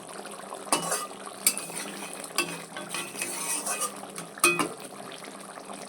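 A metal spoon stirring hilsa fish curry in mustard sauce in a pan, clinking against the pan a few times over a faint sizzle from the heat.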